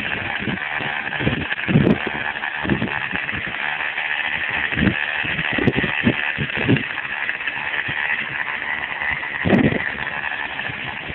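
Small two-stroke weedeater (string-trimmer) engine running steadily with a high buzz, driving a homemade boat propeller. Irregular low rumbles come and go under it.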